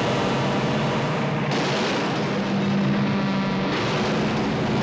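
A convoy of diesel semi-trucks driving together, their engines running loud and steady under a continuous rushing noise, which gets brighter about a second and a half in and again near the end.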